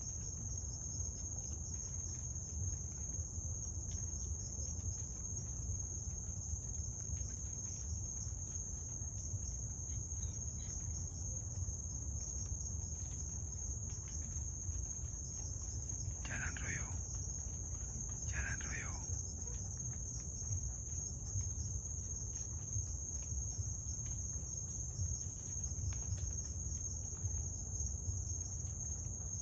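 Steady high-pitched trill of a night cricket chorus, over a low rumble. Just past the middle come two brief, short sounds about two seconds apart.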